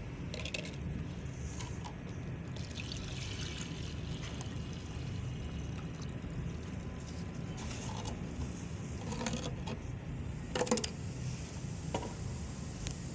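Liquid poured from a plastic measuring cup into a plastic bottle, with the containers clicking as they are handled and a sharp knock late on, over a steady low hum.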